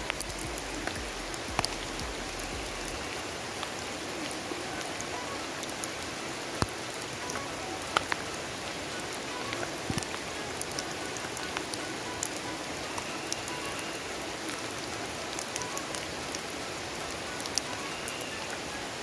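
Steady rain falling: an even hiss with many sharp drop ticks scattered through it.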